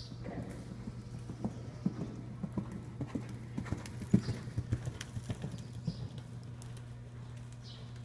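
A horse's hoofbeats on soft indoor-arena dirt footing, about three to four a second. They grow louder to a peak about four seconds in as the horse passes close, then fade away by about six seconds.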